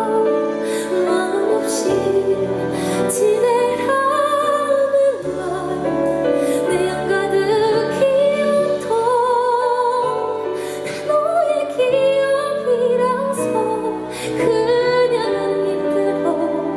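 Live performance of a Korean ballad: a woman singing sustained, wavering notes over instrumental accompaniment.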